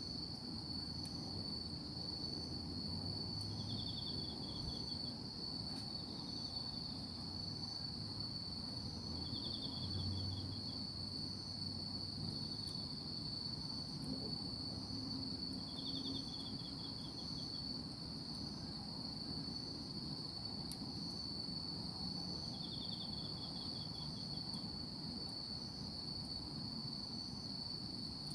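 Night insects calling: one gives a steady, unbroken high-pitched trill, while another adds short pulsed chirps every few seconds, over a faint low background hum.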